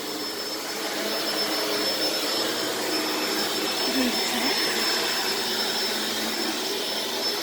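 Small, lightweight vacuum cleaner running steadily, its motor noise carrying a thin, high steady whine.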